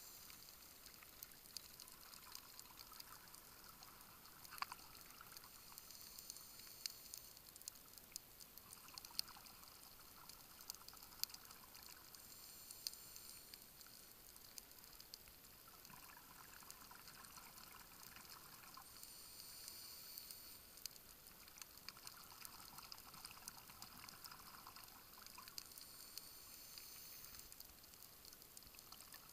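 Faint underwater sound of scuba divers' exhaled regulator bubbles, a soft bubbling that swells every few seconds with the breathing, over scattered faint clicks.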